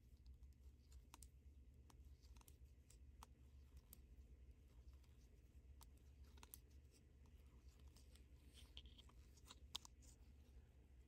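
Faint, irregular clicks and scrapes of circular knitting needles as stitches are knitted, over a low steady hum.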